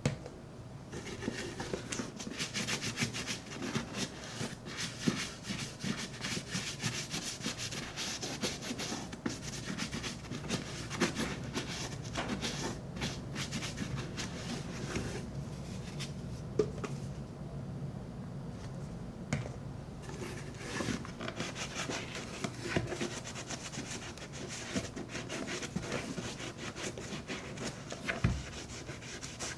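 Close rubbing and scrubbing on the leather of a Red Wing boot as it is cleaned with shoe cleaner: quick, continuous back-and-forth strokes that ease off briefly a little past the middle.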